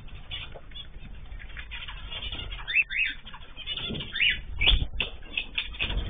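Cockatiels, zebra finches and canaries chirping in an aviary: short, scattered calls over many small clicks and flutters, with a few louder calls and thumps in the second half.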